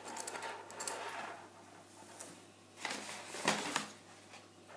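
Handling noise from a metal (alloy) iPhone bumper frame as a hand moves it about on a wooden table top: light scraping with small clicks. Louder scrapes and clicks come about three seconds in.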